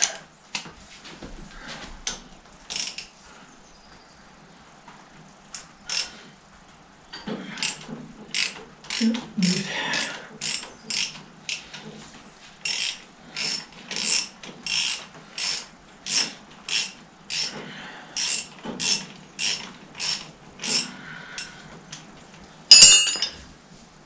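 Ratchet wrench being worked back and forth, a short rasping click-run on each stroke, settling into a steady rhythm of about one and a half strokes a second. A loud sharp metallic clank comes near the end.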